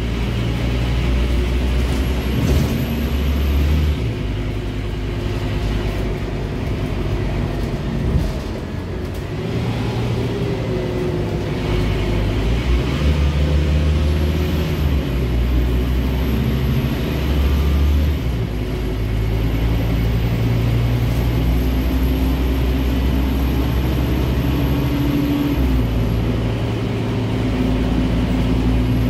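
Inside a Scania N310UA articulated bus under way: the diesel engine and drivetrain running, with a low note that steps up and down every few seconds as the bus speeds up and slows. A faint high whine comes in through the middle stretch.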